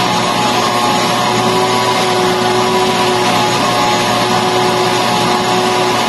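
Hose-type vacuum cleaner running steadily with a constant motor whine as its nozzle is worked over fabric sofa upholstery.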